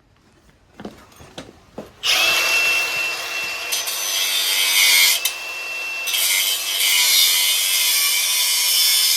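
Angle grinder with a cut-off wheel cutting through the quad's metal frame: a few light clicks, then about two seconds in the grinder starts cutting with a loud, harsh hiss over a steady whine that dips briefly twice as the wheel bites.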